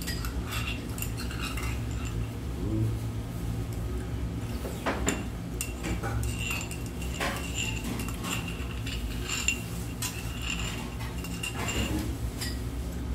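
A metal spoon and chopsticks clinking and scraping against small ceramic bowls and dishes at a meal table, many light clinks, some ringing briefly, over a steady low room hum.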